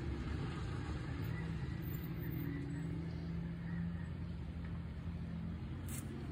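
An engine running with a steady low hum.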